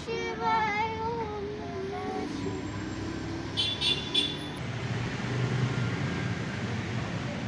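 A child's high voice singing a prayer with wavering pitch for about the first two seconds. A little later a small temple bell is struck about four times in quick succession, over a low hum of street traffic.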